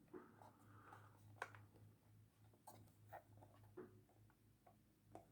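Near silence with a few faint clicks and taps of wooden puzzle box pieces being handled, the clearest about a second and a half in.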